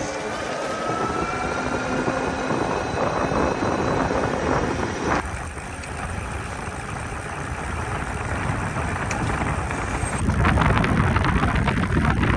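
Engwe Engine X fat-tyre e-bike on the move: knobby fat tyres rolling on asphalt, with a faint whine from the electric hub motor rising in pitch over the first few seconds. The sound changes abruptly about five seconds in, and wind rumbles on the microphone near the end.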